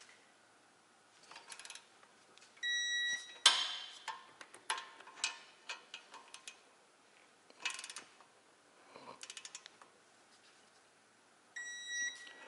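Torque wrench tightening the caliper mounting bracket bolts: a short steady beep about two and a half seconds in and again near the end, each signalling that a bolt has reached the 140 torque spec. Between them come ratchet clicks and knocks of the wrench and bracket, the loudest a sharp clack just after the first beep.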